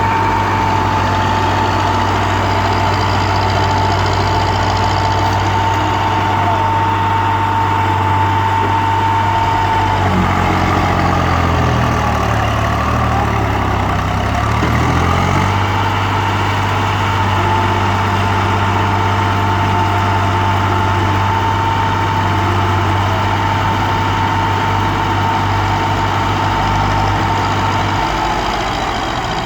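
Diesel engine of a tractor or backhoe loader running steadily with a high whine over it. About ten seconds in, the engine note drops and then climbs back over about five seconds, as the engine is loaded and recovers.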